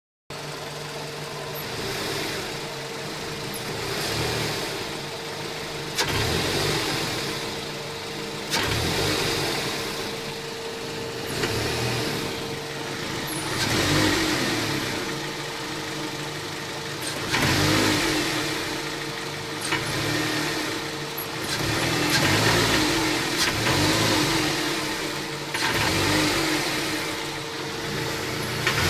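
Mazda 6 engine revved from idle in repeated short blips, about every two to three seconds, with a slight noise while revving that the owner is asking about. A thin steady tone runs underneath and stops about two-thirds of the way through.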